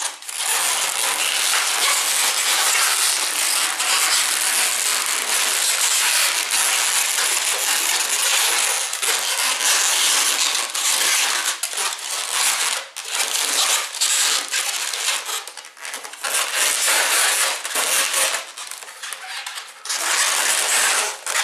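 Latex modelling balloons rubbing and crackling against each other and the hands as they are twisted and fixed together. The handling is dense and continuous, with a few brief pauses in the second half.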